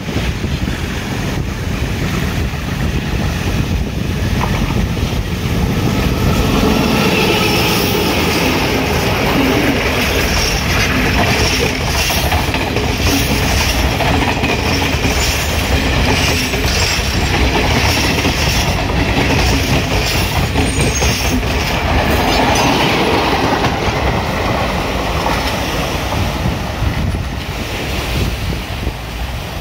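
Diesel-hauled passenger train passing close by, its coach wheels clicking over the rail joints. It fades over the last few seconds as it moves away.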